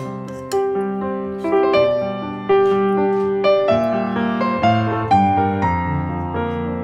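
Background piano music: a gentle melody of struck notes and chords, each one fading before the next.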